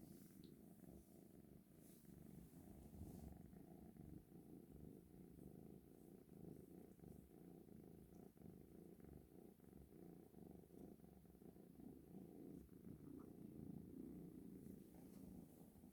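Kitten purring quietly and steadily, without a break.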